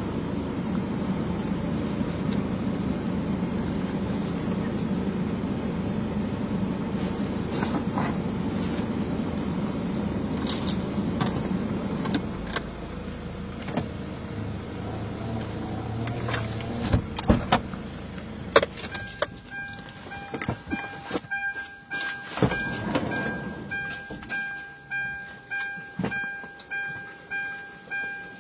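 Car interior with a steady low engine and road rumble that dies away about two-thirds of the way through. A few sharp clicks and knocks follow, then a repeating chime sounds about once a second.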